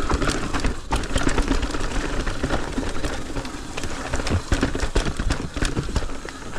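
Mountain bike riding down a rough dirt trail: tyres rumbling over dirt and rocks, with frequent clicks and rattles from the bike.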